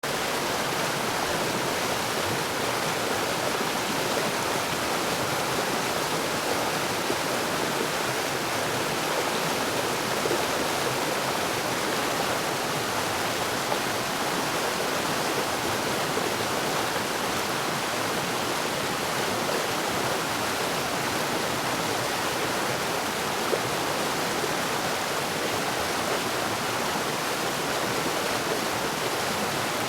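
Waterfall: a steady, even rush of falling water, with no let-up.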